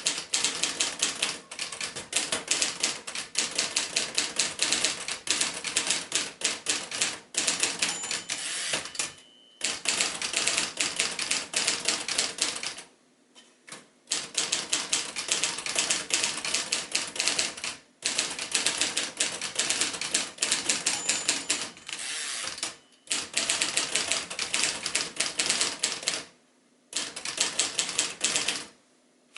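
Prewar 1941 Royal Arrow manual portable typewriter being typed on: runs of rapid, sharp keystroke clacks, broken by a few short pauses.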